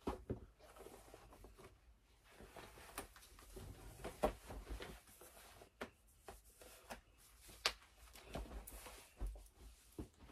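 Fabric rustling and soft handling clicks as a cardigan is pulled on and adjusted, in short scattered bursts.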